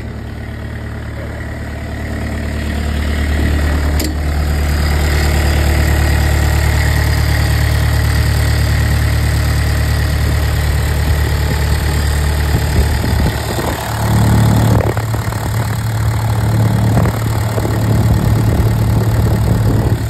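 Diesel engine of a piece of construction equipment running steadily at idle, heard close up in its open engine bay. About thirteen seconds in, its speed shifts and settles at a slightly higher pitch.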